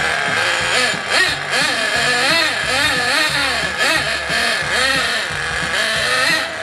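Radio-controlled Art Attack snowmobile's motor revving up and down over and over as it is driven, its pitch rising and falling about twice a second.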